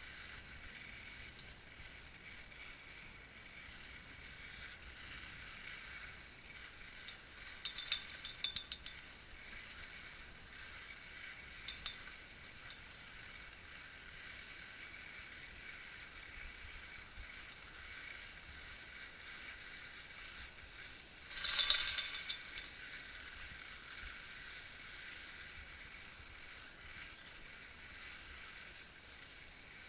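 Skis hissing steadily over packed snow while being towed up a T-bar lift, with short rattling clicks about eight and twelve seconds in and a louder clatter around twenty-two seconds.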